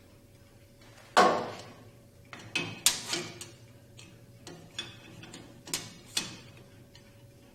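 Irregular sharp clacks and clicks of metal hand tools being handled: clamps and a steel square being set and tightened on the helicopter's main drive sprocket. One loud clack comes about a second in, then a quick cluster of clicks and a few scattered ones later.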